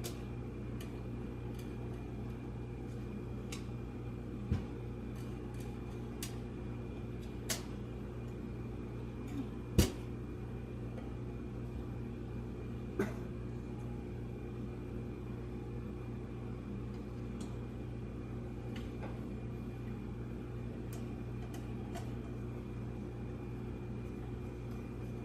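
Light clicks and knocks of computer parts being handled and fitted during PC reassembly, four of them distinct and the loudest about ten seconds in, over a steady low background hum.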